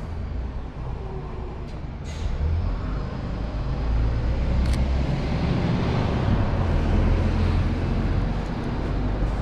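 City bus engine rumbling as it passes, swelling from about two seconds in, with a short sharp sound about halfway through.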